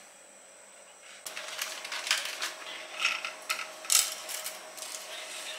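Dry spaghetti strands clattering against the rim and sides of an aluminium pot as a bundle is dropped in, a quick run of sharp clicks and rattles with a few louder ones, starting about a second in.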